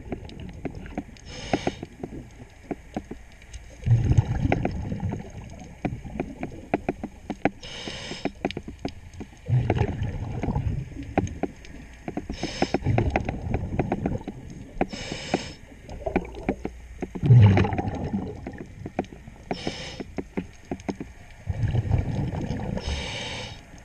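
A diver breathing through a regulator underwater: a short hissing inhale, then a low burst of bubbling exhaust, repeating five or six times at uneven intervals. Faint sharp clicks are scattered between the breaths.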